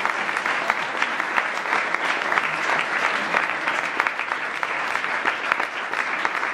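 Audience applauding: many people clapping at a steady level.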